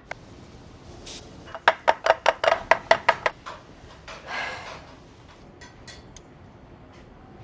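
A quick run of about nine or ten sharp taps in under two seconds: chocolate-topped peanut butter cups being tapped against a hard kitchen surface to settle and smooth the chocolate. A short hiss follows about a second later.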